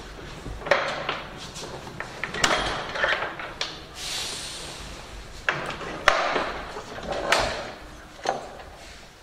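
Metal rigging hardware on ZSOUND LA110S speaker cabinets clicking and knocking as link bars and locking pins are fitted between the stacked boxes by hand, with a brief scrape about four seconds in.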